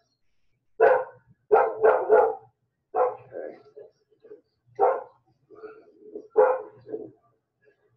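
A dog barking repeatedly: about seven loud barks, three in quick succession near the start, with fainter barks between.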